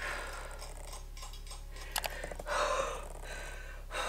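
Quiet hair-and-scissors handling: two quick light clicks about two seconds in, then a short breathy rush of sound.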